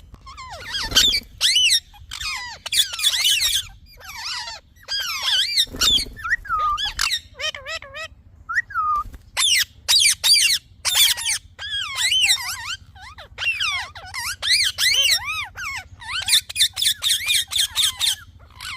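Parrot chirping: a rapid run of short, wavering high whistles and squeaks, coming in bursts with brief gaps between them.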